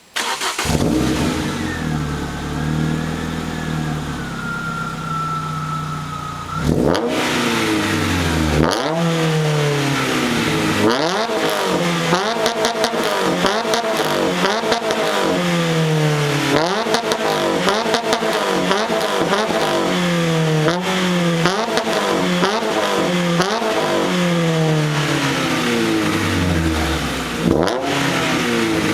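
Renault Clio 2.0 16-valve four-cylinder running through an aftermarket MG Motorsport exhaust: it runs steadily for about six seconds, then is revved again and again, each rev climbing quickly and falling away, about every two seconds.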